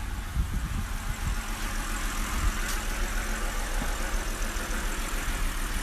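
2007 BMW 325i's N52 inline-six engine idling with a misfire, a steady rumble with an uneven beat.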